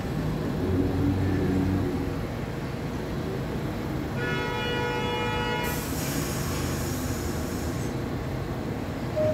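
R62A subway train standing at a station platform with a steady low rumble. A horn-like pitched tone sounds about four seconds in for about a second and a half, followed at once by a hiss of air lasting about two seconds.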